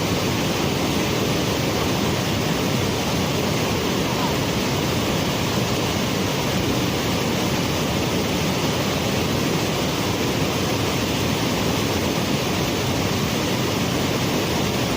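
Steady rush of water falling at a waterfall, an even, unbroken noise.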